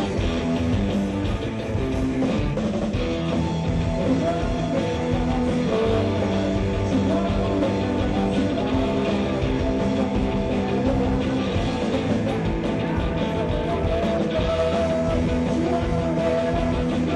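Rock music with guitars, played at a steady loudness.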